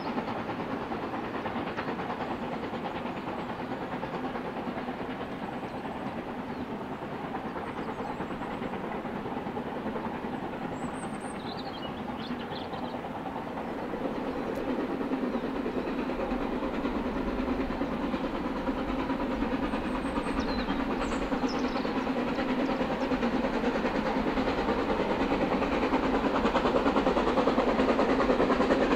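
Narrow-gauge steam locomotive working a train uphill: the steady noise of its exhaust and running grows louder as it approaches, with a deeper rumble coming in over the second half.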